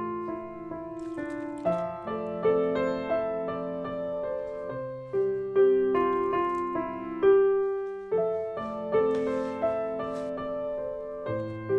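Background piano music: a melody of single notes and chords, each struck and fading.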